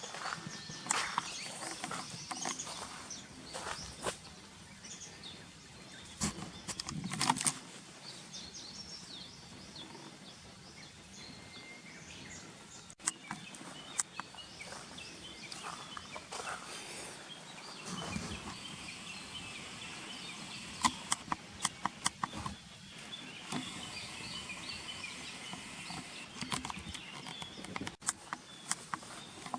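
Outdoor ambience during a dog walk: scattered sharp clicks and taps over a steady background, with small birds chirping, a run of twittering in the second half.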